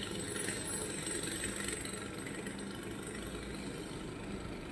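Steady low mechanical hum, like an idling engine, with a faint high-pitched whine above it.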